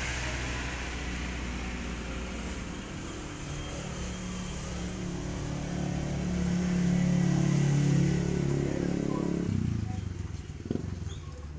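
A motor vehicle's engine running steadily, growing louder over several seconds and then cutting out abruptly about nine and a half seconds in.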